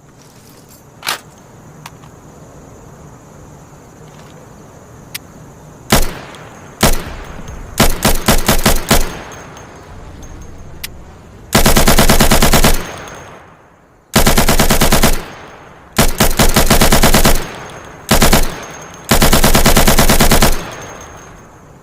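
RPK light machine gun firing: a few single shots, then short bursts, then several longer automatic bursts of about a second or more each, with brief pauses between.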